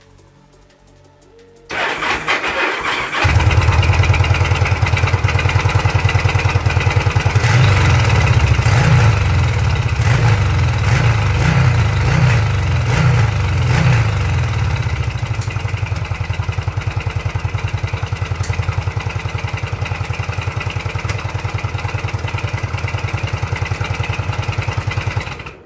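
Yamaha XVS1100 V-Star's air-cooled V-twin cranked on the starter and catching after a second or so, then blipped several times and left to idle with an even, lumpy beat through the drilled-out stock exhaust, before cutting off suddenly near the end. The owner puts its popping and backfiring down to the engine not running smoothly.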